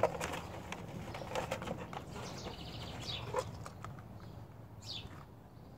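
Outdoor birds chirping: a short rapid trill and a few quick falling calls, over scattered light clicks and rustles of small plastic packaging being handled.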